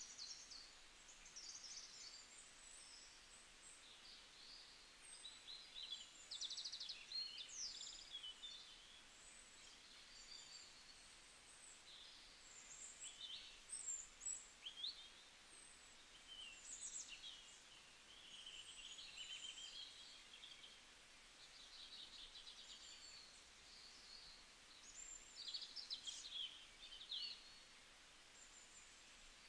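Faint birdsong: small birds chirping and trilling in short, scattered phrases, over a low steady hiss.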